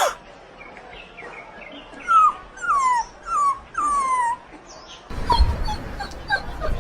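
Puppy whimpering: four short whines, each falling in pitch, then a run of quicker, shorter high yips.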